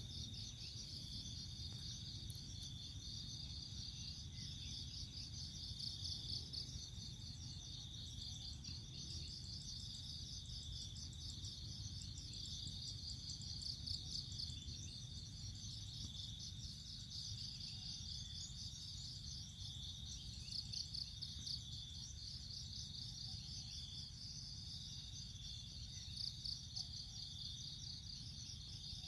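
Insects trilling continuously: a high-pitched, rapidly pulsing chorus with a steady high tone, over a low hum.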